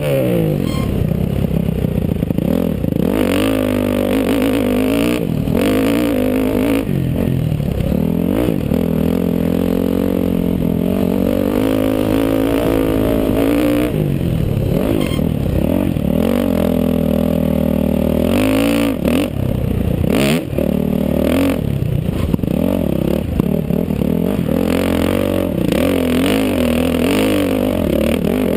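Dirt bike engine heard from the rider's helmet camera while it is ridden hard around a motocross track. The pitch climbs as the throttle opens and drops back as it closes, over and over, with a few short knocks from the bike over rough ground.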